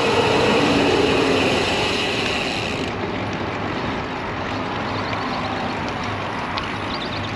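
Steady rush of wind and road noise on the bicycle-mounted microphone while riding along a highway shoulder, with traffic noise that is loudest over the first three seconds and then eases off.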